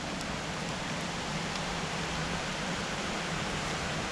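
Steady rush of a river flowing past.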